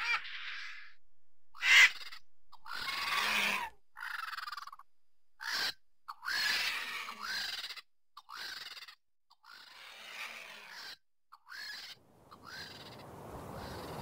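Griffon vultures calling: a string of about ten short, harsh, raspy calls with brief silent gaps between them, some ending in a short squeal. The loudest call is a sharp one about two seconds in.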